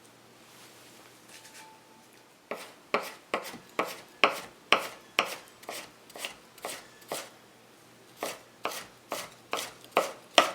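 Kitchen knife chopping on a cutting board in a steady run of strokes, about two a second, starting a couple of seconds in, with a brief pause partway through.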